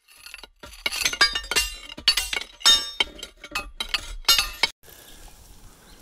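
A quick, irregular run of bright clinking strikes, each ringing briefly, like glass or small chimes, about a dozen in four and a half seconds, then cut off suddenly. After that, only a faint steady hiss of outdoor noise.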